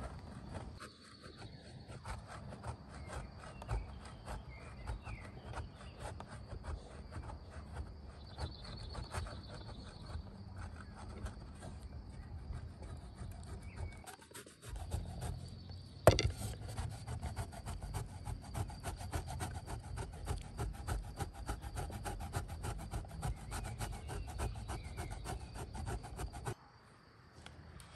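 Rapid, continuous rasping strokes, something scraped hard against a rough or wooden surface. A single sharp knock comes about halfway through, the strokes go on a little louder after it, and they stop abruptly shortly before the end.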